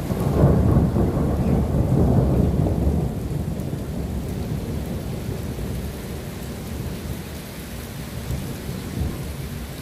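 Rain falling steadily with a long roll of thunder, loudest in the first three seconds and then dying away to a low rumble.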